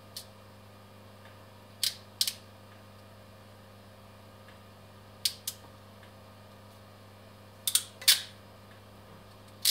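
Ratcheting ferrule crimping tool clicking as wire-end ferrules are crimped onto wires: sharp snaps, mostly in pairs, every few seconds. A steady low hum runs underneath.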